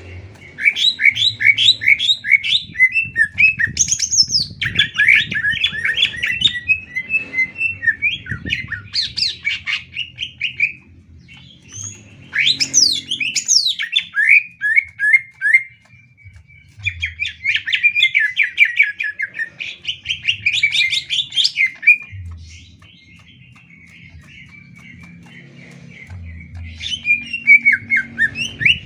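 Greater green leafbird (cucak ijo) singing a loud, varied song of fast chattering trills and rising and falling whistled sweeps. The song comes in long bursts with short breaks, and goes quieter for a few seconds before a final loud burst near the end.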